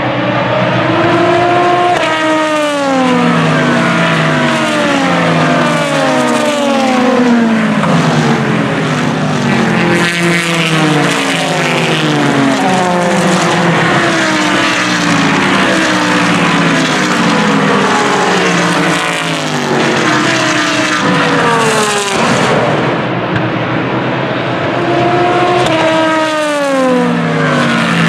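Sports racing cars passing one after another at speed, each engine note sweeping down in pitch as it goes by, in an almost unbroken stream of passes.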